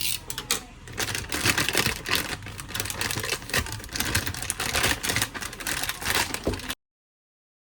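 Rapid, irregular clicking and rustling of objects being handled, which cuts off suddenly near the end.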